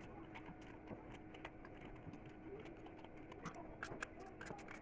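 Faint, scattered clicks of a kitchen knife cutting a raw green mango into pieces by hand, coming thicker about three and a half seconds in.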